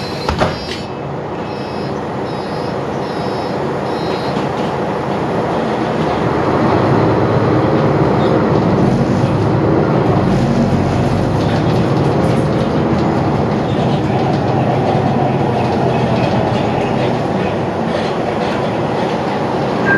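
Mercedes-Benz Citaro O530G articulated city bus heard from inside the passenger cabin as it gets under way. The diesel engine and rolling noise build over the first six or seven seconds as the bus pulls away and speeds up, then hold steady while it cruises.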